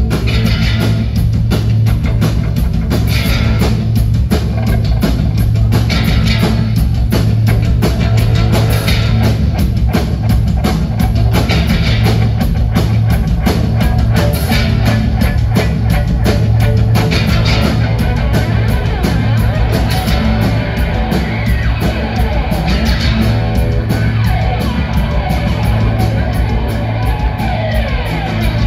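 Live rock band playing loud on a club stage, heard from the crowd: a heavy, steady bass line under electric guitars and drums.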